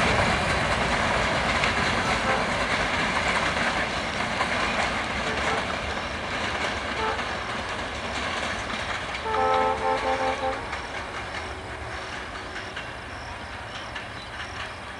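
Passenger train running past on the rails, its steady rumble fading as it moves away. About nine seconds in, a horn sounds a quick run of short blasts.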